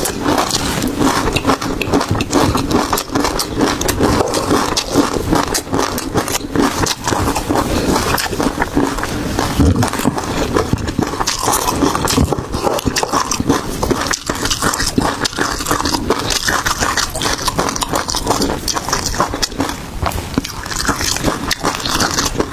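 A person eating seafood close to the microphone: continuous chewing and biting, full of dense crackling and clicking mouth noises.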